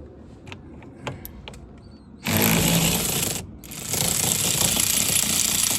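A few light clicks, then a power tool with socket and extension running out the steering wheel's center bolt in two bursts: about a second, a brief stop, then about two seconds more.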